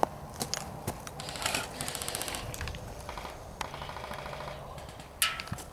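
Airsoft guns firing two rapid full-auto bursts of pops, the first about a second and a half in and the second about a second later. A few single sharp clicks come around them, with one loud crack near the end.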